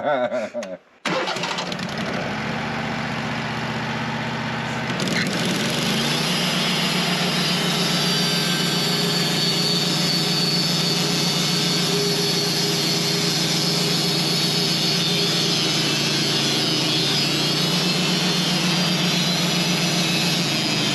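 Sawmill engine cuts in abruptly about a second in and runs steadily. About five seconds in it grows louder and brighter as the blade goes into the cut through the honey locust log, then holds steady under load.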